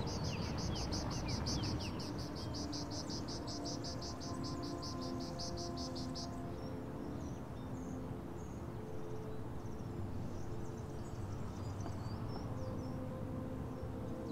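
Film soundtrack: soft held notes that change slowly, with a fast, even, high chirping of about five pulses a second that stops about six seconds in. A few short bird-like chirps sound near the start.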